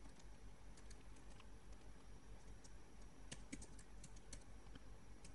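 Faint, irregular keystrokes on a computer keyboard as a command is typed, with a quick run of clicks a little past the middle.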